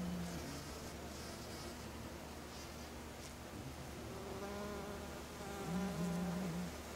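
A flying insect buzzing near the flowers, its pitch wavering up and down. The buzz is loudest at the start and again near the end.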